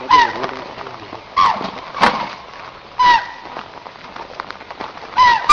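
An animal's short call, each with a falling pitch, repeated four times about a second and a half apart, with sharp clicks in between.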